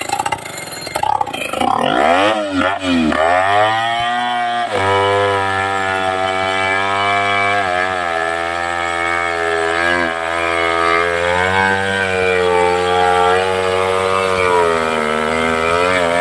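Two-stroke chainsaw engine at high revs. It is revved up and down a few times in the first seconds, then held at a steady high pitch with brief small dips, as a saw bogs slightly under load while cutting through a large tree trunk.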